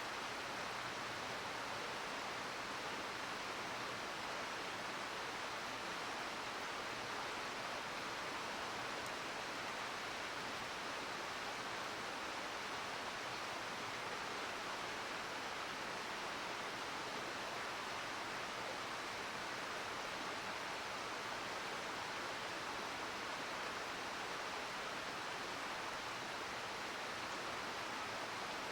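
Steady rushing murmur of a mountain stream flowing over rocks, even and unbroken throughout.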